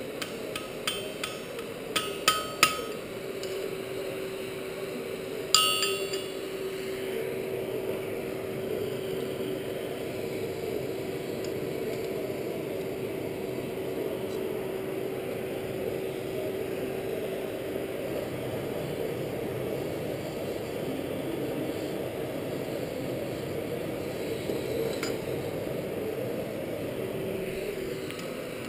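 A few sharp, ringing metal strikes and clinks on the anvil in the first six seconds, the last one the loudest. Then a steady rush and hum of the coal forge's blower while the work is reheated in the fire.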